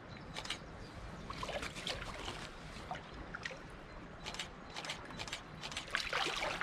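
Shallow water lapping and splashing in short strokes as a large carp is held in the water on a flooded retention sling and released, with a louder swirl and splash near the end as the fish swims off.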